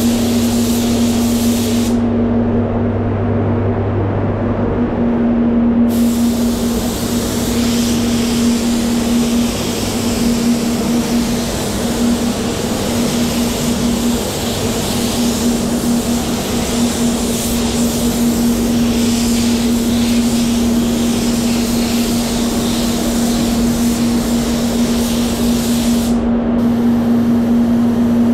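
Steady hum of the spray booth's fans under the hiss of compressed air from a SATA X5500 spray gun spraying water-based base coat. The hiss stops for about four seconds starting about two seconds in, then runs on, with a brief break near the end.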